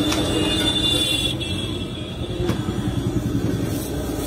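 Steady low rumble of road traffic, with a few light knocks.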